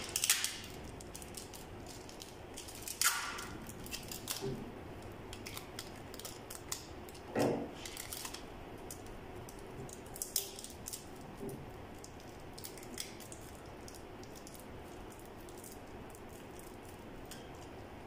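Adhesive tape being torn from a roll and small pieces of tape and plastic handled in the fingers: scattered faint rips, crinkles and clicks, the louder ones near the start, about three seconds in and about seven seconds in.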